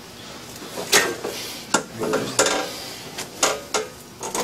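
A run of sharp clacks and knocks, about six of them, irregularly spaced.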